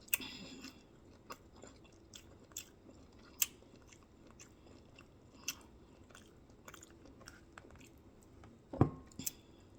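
Close-miked chewing and crunching of food, with irregular crisp crunches and clicks, and a louder, deeper thump near the end.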